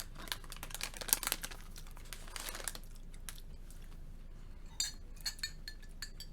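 Crinkling and crunching as barbecue popcorn is eaten and its snack packet handled, in irregular crackly bursts.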